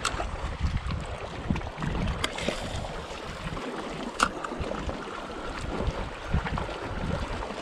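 Wind buffeting the microphone over small waves lapping at a rocky shore, with a few sharp clicks, the loudest about four seconds in.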